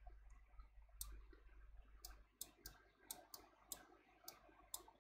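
Faint, irregular clicks of a computer mouse button, about ten in a few seconds, as lines are drawn stroke by stroke, over near-silent room tone.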